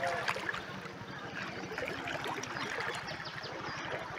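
Flowing flood water running and trickling, with many small drips and splashes as a wet cast net is hauled in by hand.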